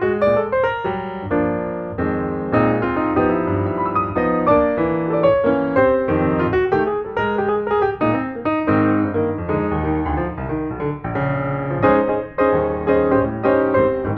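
Background piano music with quick, busy notes.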